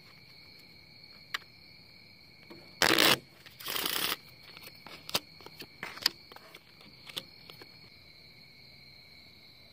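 A deck of playing cards being shuffled by hand, with two quick riffles about three seconds in, followed by light snaps and taps as cards are dealt out. Crickets chirr steadily underneath.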